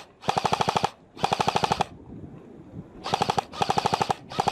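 Airsoft rifle firing on full auto in short bursts of rapid, evenly spaced shots. There are two bursts, a pause of about a second, then three more bursts close together.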